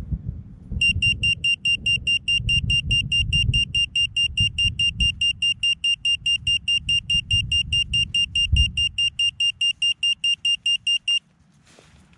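Crashed FPV quadcopter's lost-model buzzer beeping, about five high beeps a second, starting about a second in and stopping shortly before the end: the locator alarm that helps find a downed quad. A low rumble of wind on the onboard microphone runs underneath.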